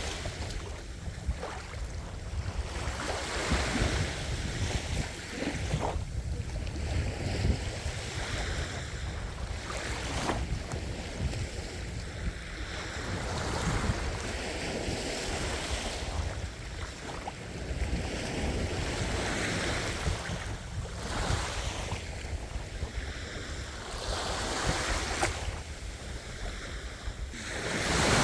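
Ocean waves breaking and washing onto the shore in a steady cycle, each swell rising and falling every few seconds, with wind rumbling on the microphone.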